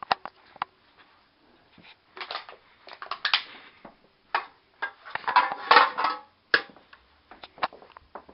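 Irregular sharp clicks and crunching, clattering noises, as of objects being handled or struck. They come in clusters, loudest about five to six seconds in.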